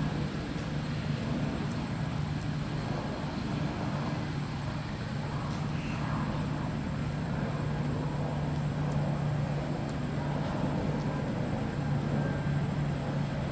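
Steady low mechanical hum over an even outdoor background noise, with no calls or sudden sounds.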